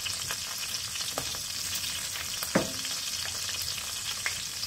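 Chicken thighs sizzling skin-side down in sesame oil in a frying pan on low heat, a steady hiss with scattered small crackles and one sharper, louder crack about halfway through. The skin is crisping.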